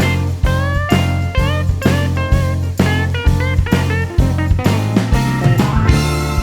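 Background music: a lead electric guitar bending notes over a steady drum beat and bass, in a blues-rock style.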